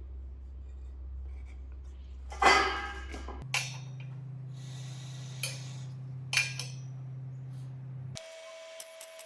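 Steel parts being handled and knocked together: one loud metallic clang that rings on briefly about two and a half seconds in, then a few lighter clanks, over a steady low hum that changes pitch abruptly twice.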